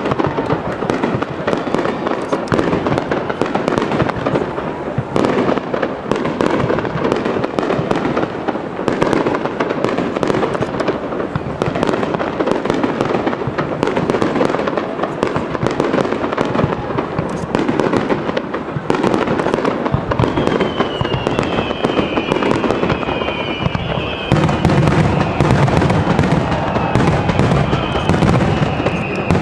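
Aerial fireworks display: dense, continuous crackling and popping shells. A few short falling whistles come about two-thirds of the way through, and heavier low booms build up near the end.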